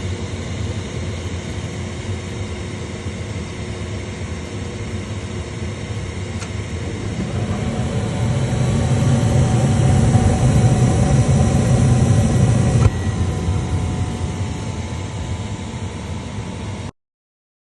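Lennox gas furnace running with a steady draft-inducer hum. A click comes about six seconds in, then the burners light with a low rushing sound that builds and cuts off abruptly about six seconds later, leaving the inducer humming. The burners not staying lit is the sign of a dirty flame sensor.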